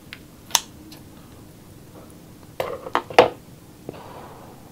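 Kitchen scissors snip through a piece of cooked adobo squid with one sharp click about half a second in. Around three seconds in comes a quick cluster of louder clicks and short squishy sounds as the squid is cut and handled.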